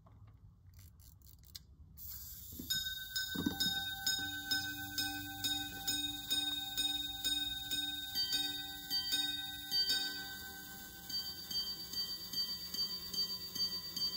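Charles Huguenin gold minute repeating pocket watch striking the time on its gongs after its repeater slide is worked, which makes a few faint clicks. A run of small ringing strikes comes about two a second, the notes change around two-thirds through, and after a short pause a further run of strikes follows: hours, quarters and minutes of a minute repeater.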